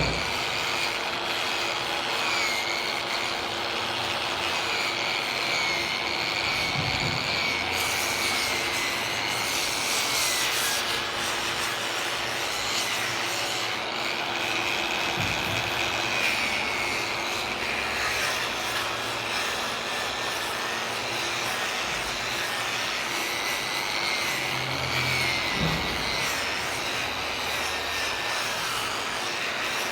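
A power tool runs continuously while working wood, its pitch wavering slightly as the load changes. There are a few brief knocks.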